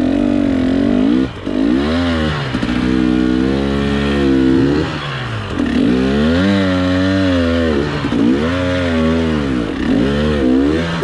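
Dirt bike engine running under load, its pitch climbing and dropping back several times as the throttle is opened and closed.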